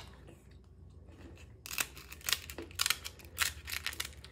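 Kitchen shears cutting along the top of a raw lobster tail's shell, about five crunching snips roughly half a second apart, starting a second and a half or so in.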